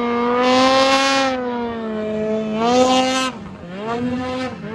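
Ski-Doo 600 RS snowmobile's two-stroke engine held at high revs while the sled skims across open water, with a hiss of spray from the track as it passes close. The engine pitch dips briefly twice near the end as the throttle eases.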